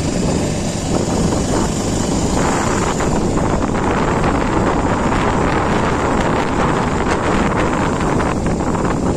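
Wind rushing over the microphone of a moving motorcycle, with the bike's engine running underneath; the rush grows louder a couple of seconds in.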